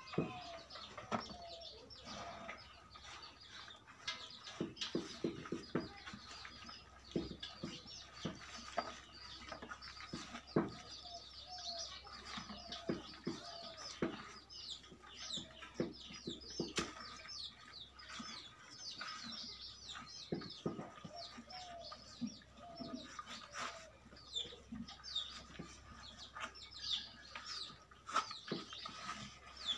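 A calf feeding with its muzzle down in a rubber bucket, giving irregular knocks and scrapes against the bucket. Hens cluck and small birds chirp busily in the background.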